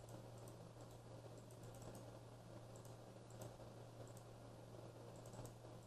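Near silence with a few faint computer mouse clicks scattered through it, over a low steady hum.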